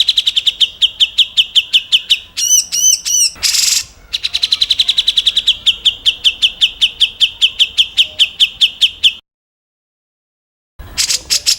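Recorded songbird 'tembakan' call: a fast series of sharp repeated chips, about eight a second, broken briefly by a few arched notes and a harsh rasping burst. It then resumes and cuts off abruptly. After a short silence another rapid series begins near the end.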